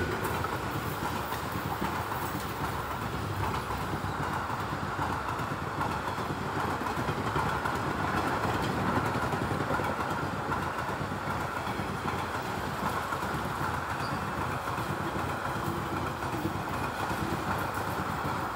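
Express train's passenger coaches passing at speed on the track: a steady, loud rumble of steel wheels running on the rails.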